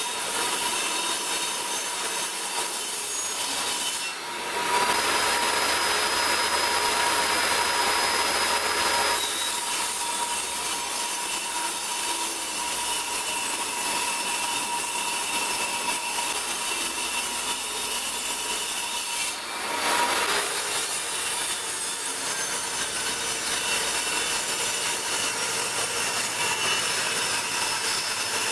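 Benchtop table saw ripping plywood sheets: the motor runs with a steady high whine under the noise of the blade cutting through the wood. The sound dips briefly twice, about four seconds in and again near twenty seconds in.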